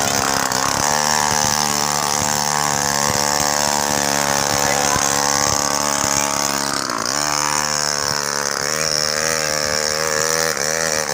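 Small grass-cutter engine driving a homemade mini motorbike, running under load as it is ridden. Its pitch dips and recovers about seven seconds in and again near the end.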